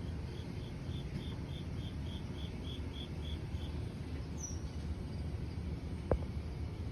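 Rhythmic high chirping: about a dozen short, evenly spaced chirps at roughly three a second, all at one pitch. They are followed by a brief falling whistle and a single sharp click near the end, over a steady low background rumble.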